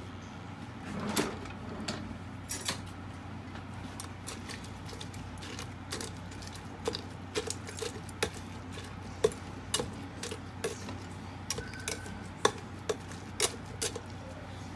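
Irregular light clicks and taps as boiled sea-bream bones and kelp are pressed and shifted by hand in a stainless-steel mesh sieve over a pot, with a steady low hum underneath.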